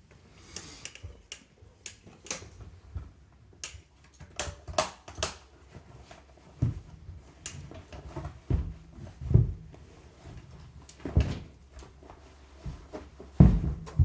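Irregular clicks, taps and knocks of hands handling wheelchair caster parts and tools, with a few heavier thumps, the loudest near the end. A faint steady low hum runs underneath.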